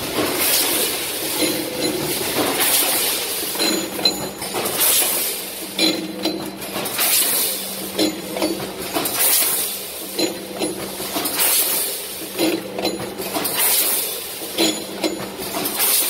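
Microwave popcorn packing machine running in a steady cycle: a short hiss about once a second, with clicks and clinks between.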